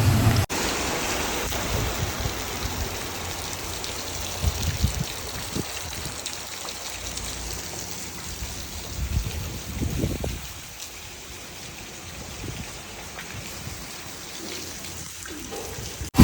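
Steady rain falling, an even hiss with a few faint low thumps.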